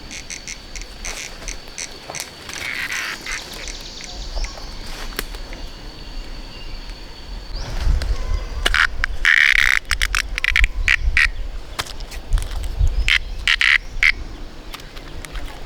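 Ducks quacking in short repeated calls, busiest over the second half, with a steady high-pitched whine, like an insect's, in the first half.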